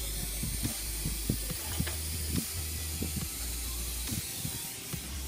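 Surgical suction running with a steady hiss over a low hum, with scattered soft low taps.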